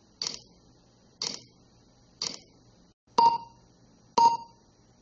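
Ticking sound effect, one tick a second like a clock: three dry ticks, then two louder ticks that each ring briefly with a short ping.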